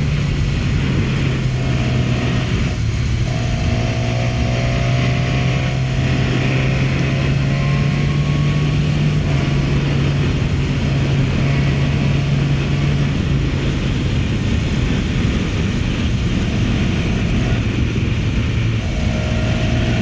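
Motorcycle engine running at a steady cruise under a constant rush of road and wind noise. The engine's low note shifts down slightly a few times, about nine seconds in and again later.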